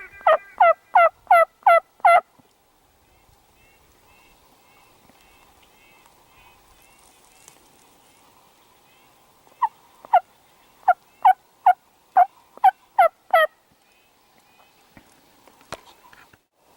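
Two runs of loud turkey yelps, about three a second, each note dropping in pitch: about seven notes at the start and nine or ten more in the second half. Faint songbird chirps come in between.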